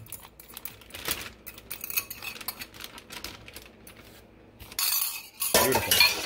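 Plastic zip-top bag being handled as marinade is poured in from a glass bowl, with light clinks and taps. Louder crinkling of the plastic comes near the end, as the bag's zipper is pressed shut.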